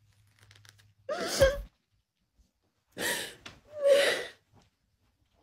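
A woman crying: three gasping, half-voiced sobs, the first about a second in and the last two close together near the middle.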